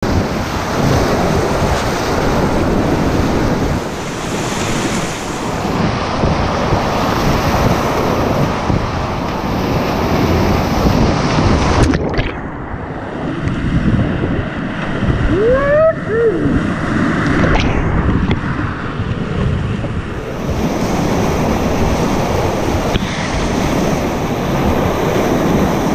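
Whitewater rapids rushing and crashing around a kayak, heard from a camera mounted on the boat, with wind buffeting the microphone. About halfway through the sound turns muffled and dull for some five seconds as the camera goes under water, then the open rush of the rapid returns.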